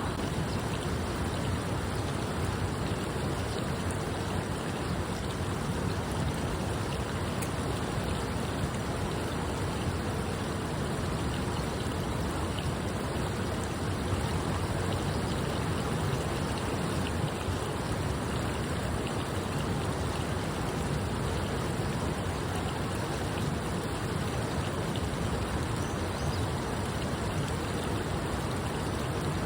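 Steady rushing wind and road noise from riding on a motorcycle, with no engine note standing out.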